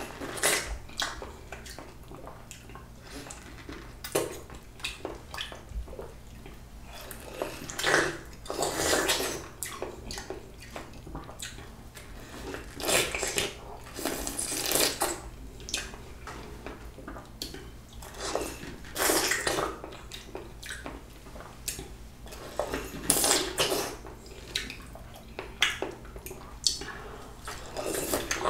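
Close-miked wet slurping, sucking and biting of a juicy peeled peach, in bursts every few seconds with small sharp mouth clicks between.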